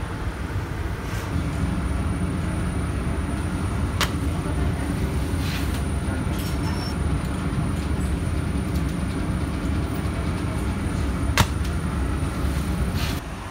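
Automated taftoon flatbread-baking machine running: a steady low mechanical rumble with a faint high whine, broken by two sharp knocks, one about four seconds in and a louder one near the end.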